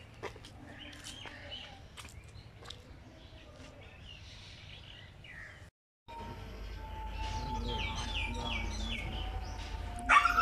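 Birds chirping faintly, then after a short break a run of quick descending bird calls, and a single loud bark from a Siberian husky near the end.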